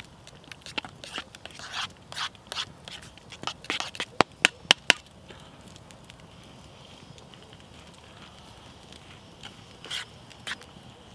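Metal spoon stirring and scraping mashed potato in enamel camping mugs, with a quick run of about four sharp clicks some four seconds in. A campfire crackles and hisses throughout.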